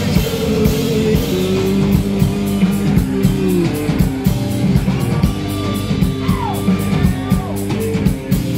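Live band playing a loud passage with electric guitars and drum kit, cymbal strokes keeping a steady beat.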